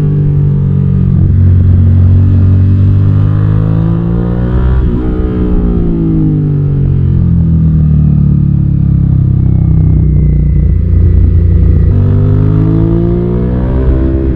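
Suzuki SV650's V-twin engine under way, its revs climbing to a peak about five seconds in, then falling away, and rising again near the end.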